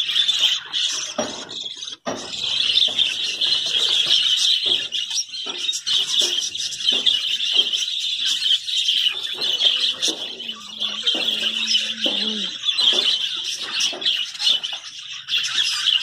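Many budgerigars chirping and warbling together in a continuous, overlapping chatter.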